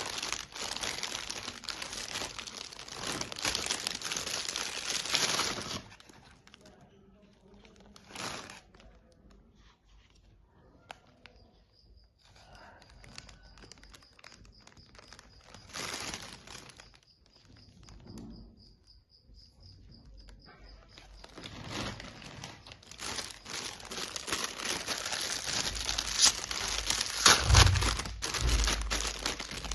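Plastic packaging crinkling, with some tearing, as it is handled and opened. There are two long busy stretches, at the start and from about two-thirds of the way in, with only a few short rustles in the quieter middle.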